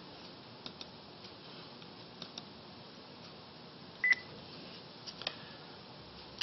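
Faint room hiss with a few soft clicks, likely mouse clicks. About four seconds in comes one louder click with a brief high beep.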